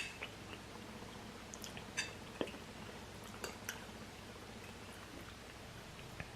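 Faint chewing of ramen noodles, with a handful of short, light clicks spread through.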